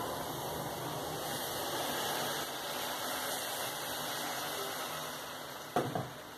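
Water poured from a saucepan into a hot pot of kale, hissing steadily as it hits the hot pan and fading after about five seconds. Near the end a few knocks come as a wooden spoon stirs against the pot.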